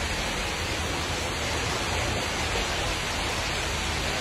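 Steady rushing of floodwater and heavy rain.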